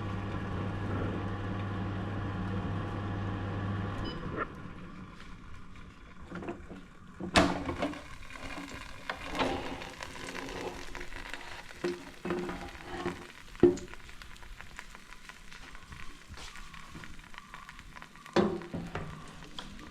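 Air fryer fan motor running with a steady hum that stops about four seconds in as the basket is pulled out. Hot chicken pieces then sizzle in the basket, and several sharp metal clicks and knocks come from the basket being handled.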